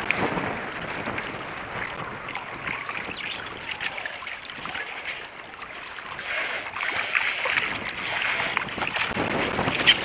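Choppy lake water splashing and lapping against a small boat's hull, with wind rushing on the microphone; it quietens around the middle and gets louder and splashier over the last few seconds.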